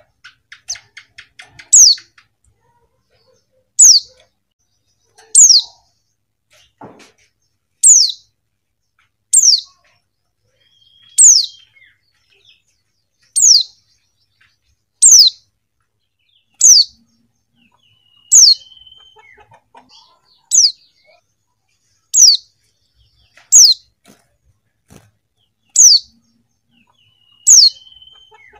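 Female white-eye (pleci) calling: a single short, high call that slides down in pitch, repeated about every one and a half to two seconds, with faint soft ticking between some calls.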